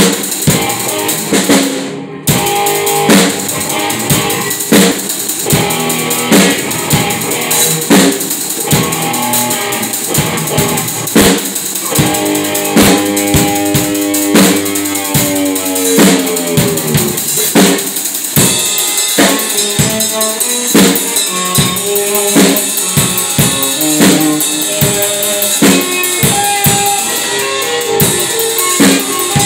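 Drum solo on a Pearl acoustic drum kit: bass drum, snare and toms struck in quick, busy patterns under crashing and ringing cymbals, the toms left ringing.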